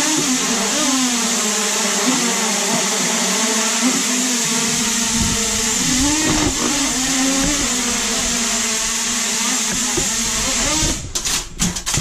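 Small quadcopter drone's propellers whirring loudly, the motor pitch wavering as it lifts off and flies, with a rumble of rushing air joining in about four seconds in. About eleven seconds in the whir breaks off into a quick run of clattering knocks as the drone crashes.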